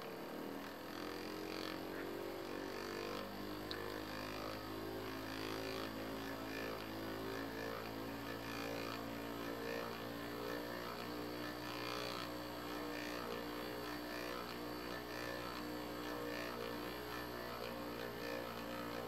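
Small DC motor coupled shaft to shaft with a second motor used as a generator, whining as it runs. It comes up to speed about half a second in, its pitch creeping higher at first and then holding steady over a low hum, and it stops near the end.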